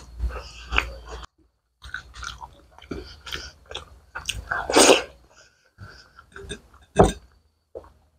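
Close-miked chewing of a mouthful of rice and curry eaten by hand: irregular wet smacks and clicks of the mouth, the two loudest a little before five seconds and about seven seconds in.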